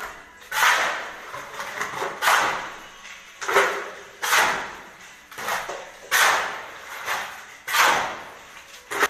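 A shovel scraping and turning a cement-and-gravel mix on a concrete floor, mixing concrete by hand. Rough rasping scrapes come about once a second, each sharp at the start and then fading.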